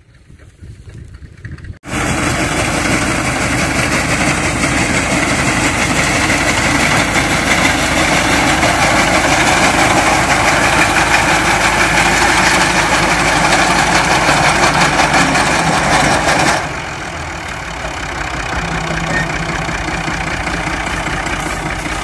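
Tractor engine running loudly while its front-mounted reaper cuts standing wheat. It starts abruptly about two seconds in and drops to a lower, steadier engine sound near the end.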